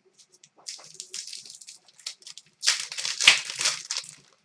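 Crinkling and rustling of trading card packs and cards being handled, growing louder in the second half.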